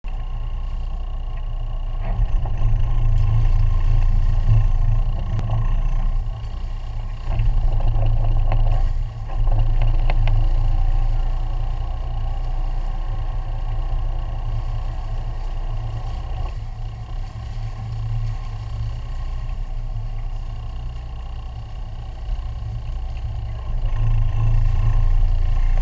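Sportfishing boat's engines running, a steady low rumble that swells louder at times and eases off in between.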